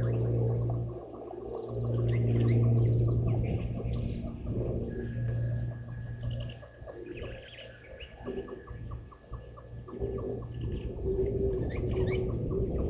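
Bushveld birds chirping over a steady high whine and a rapid run of evenly spaced short calls. A low steady hum underneath breaks off briefly about a second in and fades out about five seconds in.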